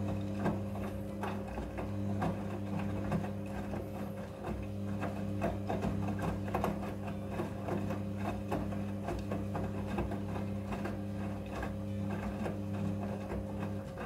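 Midea front-loading washing machine running: a steady low hum with a busy patter of small clicks and rattles, cutting off suddenly at the very end. Faint background music continues underneath.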